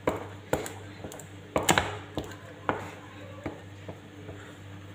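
A utensil knocking and scraping against a cooking pot in irregular strikes, about seven in all, as thick bula porridge is worked in the pot.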